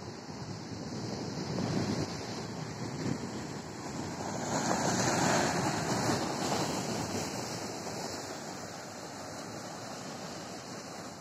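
Sea surf washing in and breaking against the boulders of a rock breakwater, a steady rush that swells louder about four to six seconds in as a wave crashes.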